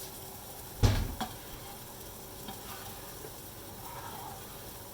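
Pan sauce reducing over raised heat, sizzling steadily in a frying pan. A sharp knock of pan or utensil comes about a second in, with a smaller click just after.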